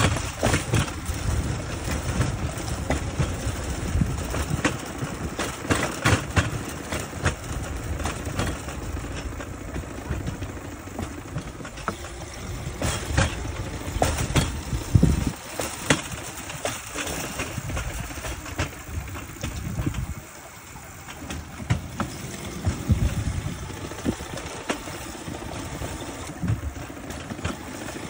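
Rail bike's steel wheels rolling on old jointed railroad track: a steady low rumble with irregular clacks and rattles from the wheels and frame. The rumble drops for a moment about two-thirds of the way through.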